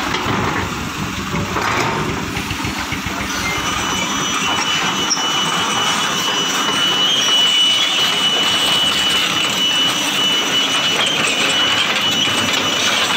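Heavy diesel engines running steadily: a loaded dump truck pulling away down a dirt track, with the excavator running close by. A thin, steady high-pitched whine joins about four seconds in.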